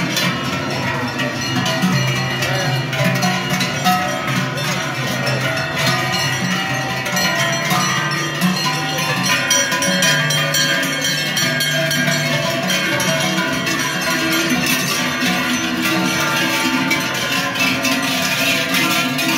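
Many large cowbells clanging continuously and irregularly, swinging from the necks of a herd of cows walking past.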